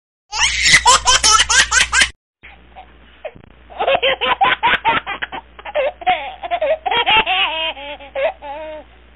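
Human laughter in quick rhythmic bursts: a high laugh for about two seconds, then after a short pause a longer run of laughing.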